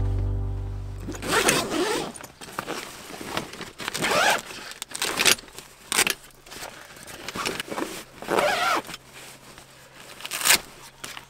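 A zipper pulled several times in short strokes, with fabric rustling between the pulls, as camping gear is handled.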